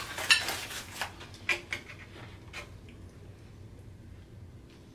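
Aluminium foil crinkling as a foil-wrapped tortilla is lifted and unwrapped, a handful of sharp crackles in the first two and a half seconds.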